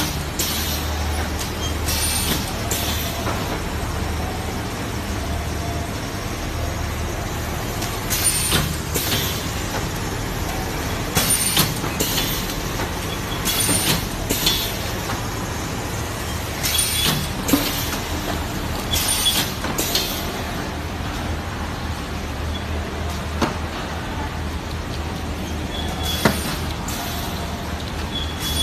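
Automatic L-type shrink-wrap sealer and heat-shrink tunnel running: a steady low hum under short hisses that come in pairs every few seconds as the sealing bar cycles down and up.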